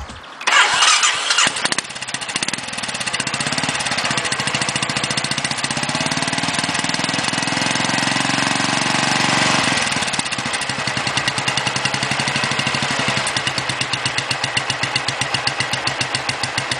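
Royal Enfield Bullet 500's single-cylinder four-stroke engine starting about half a second in and held at higher revs. About ten seconds in it drops back to a slow, even idle with separate exhaust beats.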